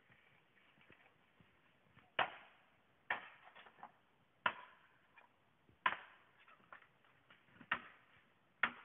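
Six sharp chopping blows of a blade into a bamboo pole, about a second apart, with lighter knocks and rustles between them.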